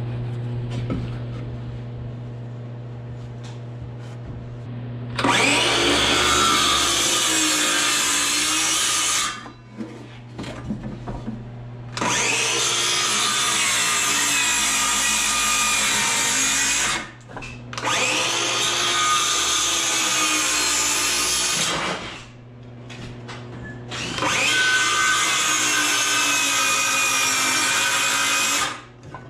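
DeWalt cordless circular saw ripping a pine board lengthwise in four long passes of about four to five seconds each, its pitch wavering as the blade loads and unloads in the cut, with short pauses between passes.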